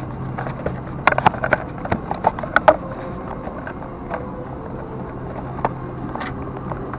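Steady hum of a Boeing 747-400 airliner cabin, with a run of sharp clicks and knocks about one to three seconds in and a few single ones later, as passengers handle bags and overhead bins.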